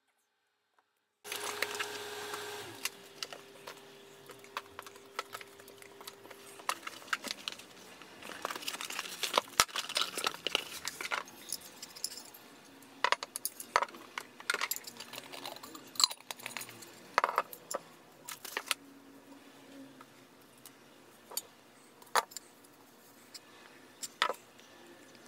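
Handling noise from a water bottle being turned over in the hands and moved about on a tabletop: irregular clicks, taps and light knocks, starting about a second in, with the loudest knocks near the middle.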